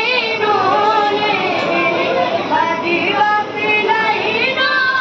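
A high voice singing a slow melody in long, wavering held notes.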